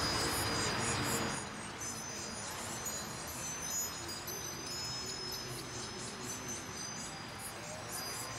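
Film soundtrack played through a lecture hall's speakers: thin, sustained high tones with a light tinkling over a low rumble. A fuller, louder music layer drops away about a second and a half in.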